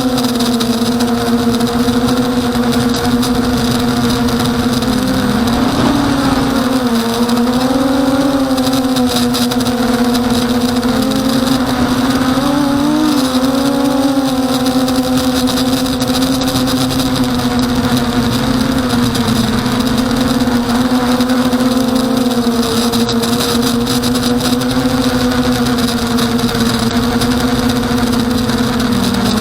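Emax Nighthawk 250 racing quadcopter's brushless motors and propellers buzzing in flight at one steady pitch, which dips and wobbles a few times as the throttle changes.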